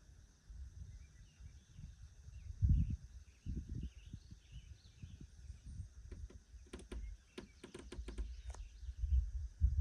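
Woodland ambience: small birds chirping faintly over a steady high hiss, with irregular low rumbling bumps and a quick run of sharp clicks near the end.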